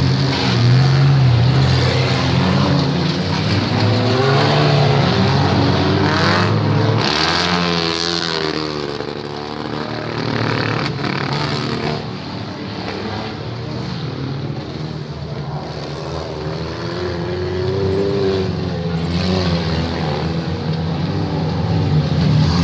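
Several demolition derby cars' engines running and revving together, their pitch rising and falling, with a few sharp knocks from about six to eleven seconds in.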